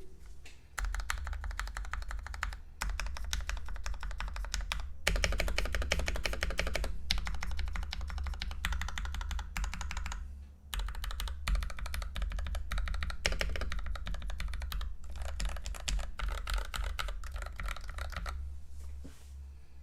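Fast typing on a mechanical keyboard with lubed and filmed linear Gateron Yellow switches in an aluminium plate, the keystrokes coming in quick runs broken by a few short pauses.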